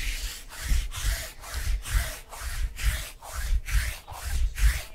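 Sticky lint roller rolled back and forth across a tabletop, each stroke a rasping, tearing rub, about three strokes a second.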